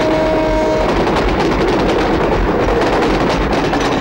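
Dramatic film background score: a held note that cuts off about a second in, then a dense, loud, even percussive clatter.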